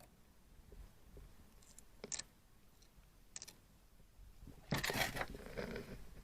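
Canadian coins clicking against a magnet: two short, sharp clicks, then a louder metallic clatter about five seconds in as coins are handled on the magnet.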